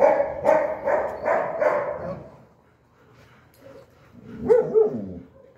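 A dog barking: four quick barks in a row in the first two seconds, then one more short call about four and a half seconds in.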